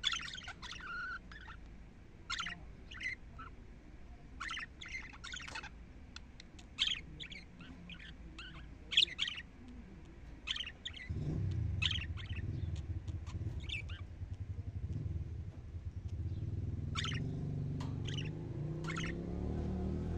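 Budgerigars chirping in short, separate calls. About halfway through a low, steady engine hum from a vehicle comes in and stays under the chirps.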